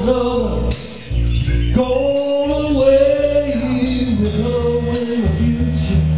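Male vocalist singing a slow soul song over backing music, holding long, wavering notes above a steady bass line.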